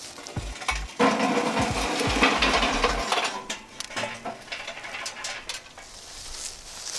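Lit mesquite charcoal briquettes pouring out of a metal chimney starter into a portable charcoal grill's firebox, clattering against the metal. The pour is loudest for a couple of seconds starting about a second in, then settles to scattered rattles as the last coals are shaken out.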